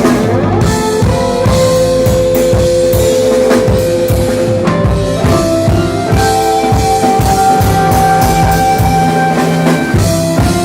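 Rock band playing live: a drum kit keeping a steady beat, with long held notes over it, one from about 1.5 s and a higher one from about 6 s.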